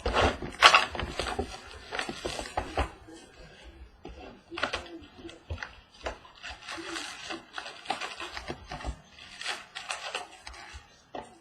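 Handling and opening a box of trading card packs: an irregular run of short taps, clicks and rustles of cardboard and pack wrappers.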